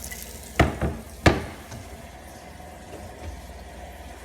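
Two sharp knocks about two-thirds of a second apart, a smaller rattle just after the first, typical of wooden kitchen cabinet doors banging open, over a low steady hum.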